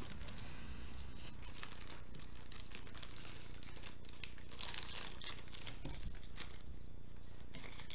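Clear plastic packaging crinkling and rustling as it is handled, with small ticks, loudest about five seconds in.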